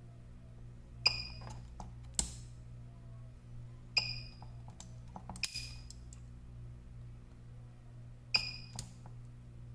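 PCB spot welder firing through thick copper needles onto nickel strip, six sharp snaps spaced irregularly, most followed by a brief high ring. Each snap is one weld pulse.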